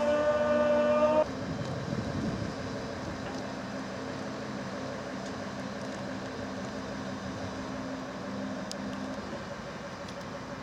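Heavy mobile crane at work: a loud whine of several steady tones cuts off about a second in, after which its diesel engine runs on steadily at a low pitch.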